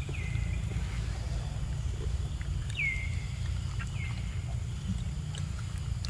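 Three short high animal calls, each sliding down in pitch and then holding briefly, over a steady low rumble, with a few faint clicks.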